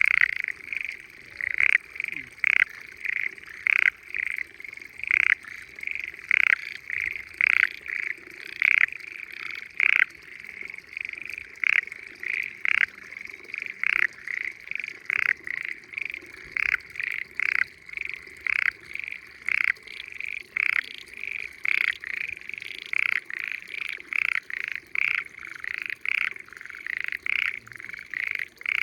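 Frogs calling in a continuous chorus: short, high-pitched calls repeating about twice a second without a break, some louder and nearer than others.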